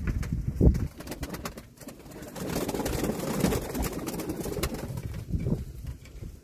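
Domestic tumbler pigeons cooing in the coop, mixed with rustling and clicking handling noise as a pigeon is held and turned over in the hands.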